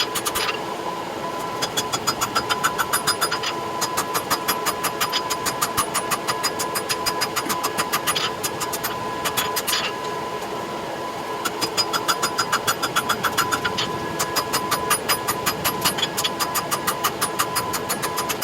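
Forging hammer blows on hot steel: runs of rapid, evenly spaced metal strikes, about five a second, each run lasting a few seconds with short pauses between, over a steady mechanical hum.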